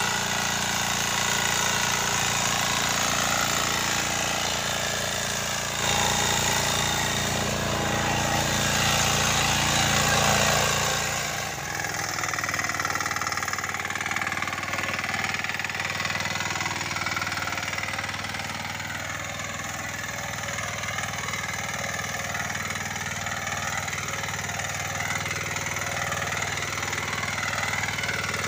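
12 HP Kama single-cylinder diesel engine of a power weeder running steadily while its rotary tines till the soil. About twelve seconds in, the deep low rumble drops away and the engine note turns lighter.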